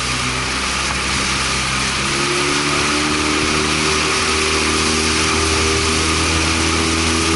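A small motorboat's engine running under way behind rowing eights, its pitch stepping up a little about two seconds in, with a steady rush of wind and water.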